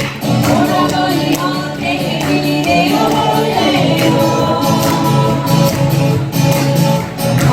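Acoustic guitars strumming while several voices sing together, a live amateur group performance.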